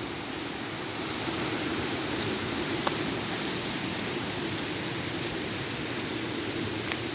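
Steady rush of a river flowing over rocks, an even hiss with no letup, with a single small click about three seconds in.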